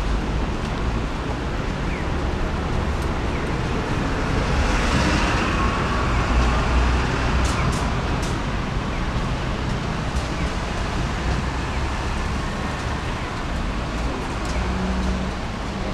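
Steady road-traffic noise with a low rumble, swelling as a vehicle passes about five seconds in.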